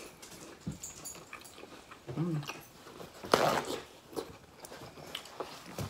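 Pet dog vocalizing near the table, loudest in a brief sharp sound just past three seconds in, with light clinks of spoons in soup bowls.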